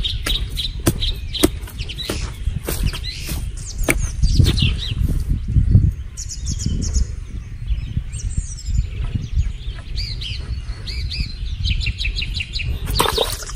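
A wooden stick digging and jabbing into dry, crumbly soil, giving irregular knocks, scrapes and dull thuds. Small birds chirp in quick series of short calls, most clearly in the second half.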